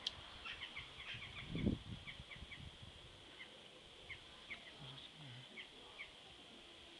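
Small birds chirping in short, quick, irregular calls over a faint steady high hiss, with a low bump about a second and a half in.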